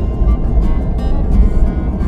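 Background music with a steady beat, over the low rumble of a car driving at highway speed, heard from inside the cabin.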